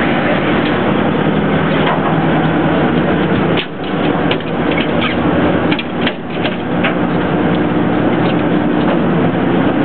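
Boat engine running with a steady hum. There is a brief dip in level in the middle, followed by a cluster of sharp clicks and knocks.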